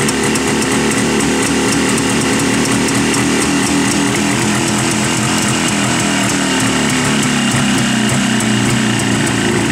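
Jawa 350 two-stroke twin engine idling steadily with a fast, even beat, still on its enrichener (choke) while warming up from a cold start. The revs sag slightly near the end.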